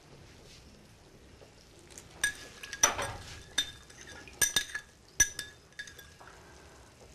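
A spoon stirring and clinking against a small glass bowl as citric acid is dissolved in water. There is a run of ringing clinks, starting about two seconds in and stopping about a second before the end.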